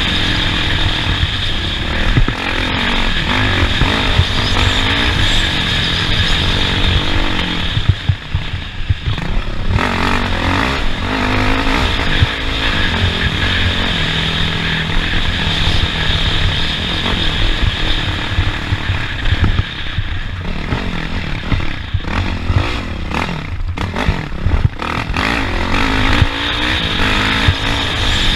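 Off-road race vehicle engine running hard, its pitch rising and falling as it revs up and eases off over the course, with rattling and clatter over rough ground.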